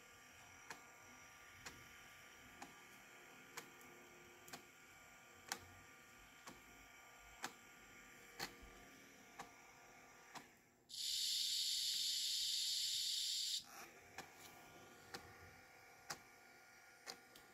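The Sony WM-F15 Walkman's cassette mechanism clicking, a sharp click about once a second; the clicking causes wow and flutter in playback. About eleven seconds in, a loud hiss cuts in for under three seconds and stops suddenly, while the clicking carries on.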